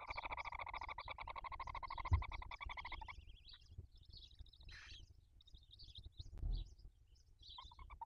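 Barn owls in the nest calling: a rapid buzzing trill for about three seconds, then fainter, scattered twittering, with a brief knock a little past six seconds.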